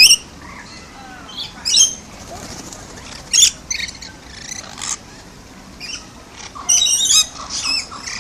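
Parrots squawking in a series of short, shrill, warbling calls, the loudest right at the start and a quick cluster of calls near the end.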